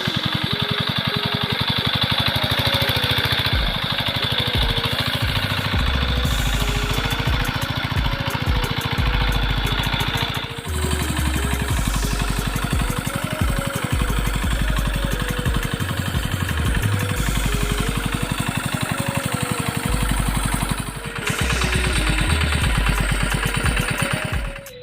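Small engine running steadily with a fast, even beat, the motor of a large-capacity water pump, with background music over it.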